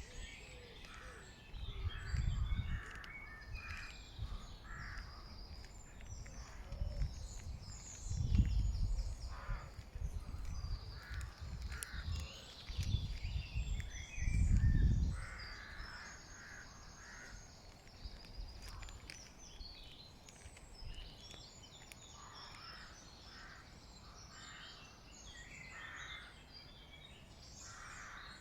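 Many wild birds calling and singing, overlapping short calls throughout. Several low rumbles come and go among them, the loudest around the middle.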